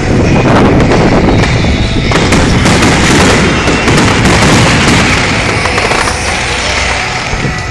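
Fireworks display: a continuous, dense rattle of many quick cracks and pops from launches and aerial shell bursts, loud throughout and easing a little near the end.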